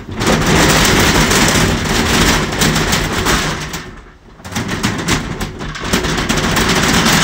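Tall metal accordion hurricane shutter panels rattling and scraping along their track as they are folded back. This comes in two long runs with a short break about four seconds in.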